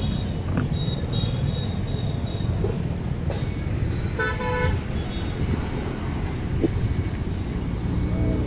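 Steady traffic rumble with a vehicle horn tooting once, briefly, a little after four seconds in.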